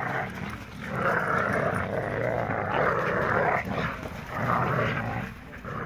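Dogs growling in play while tugging on a rope toy together. The growling comes in two rough stretches: a long one of nearly three seconds, then a short break, then a shorter one.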